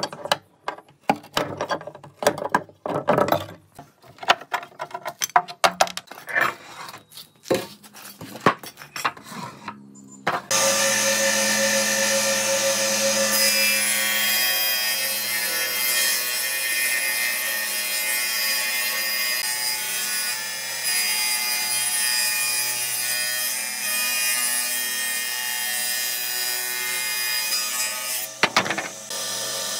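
Woodworking: about ten seconds of irregular knocks and scrapes on wood, then a power tool starts abruptly and runs steadily, cutting or working wood with a high whine. It dips briefly near the end.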